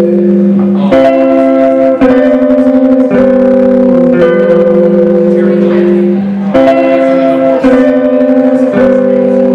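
Amplified electric guitar playing an instrumental progression of held chords, moving to a new chord about once a second, some with a fast wavering shimmer.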